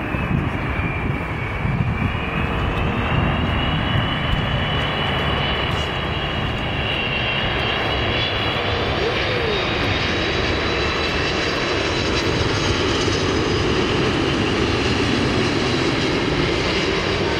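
Jet engines of an Airbus A330-200 airliner landing, with a steady engine noise and a high whine that dips slightly and then rises about nine seconds in.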